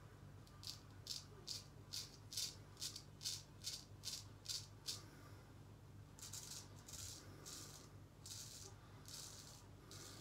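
C.V. Heljestrand straight razor scraping through two days of stubble under shaving lather, the crisp 'singing' of a sharp edge cutting whiskers. It makes a quick run of short strokes, about two or three a second, then a few longer, slower strokes after a short pause.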